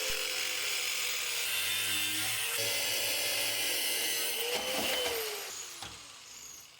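Power tool cutting through a stainless san-mai steel knife blank with a steady grinding noise. It winds down and fades over the last second or so.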